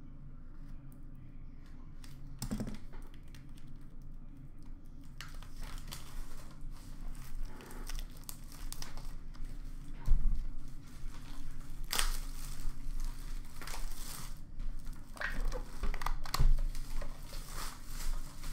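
Plastic shrink-wrap crinkling and tearing as it is stripped off a sealed trading-card box, with a couple of dull thumps as the cardboard box is handled. The loudest thump comes about halfway through.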